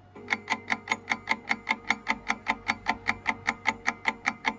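Countdown-timer clock-tick sound effect: quick, evenly spaced ticks, about five a second.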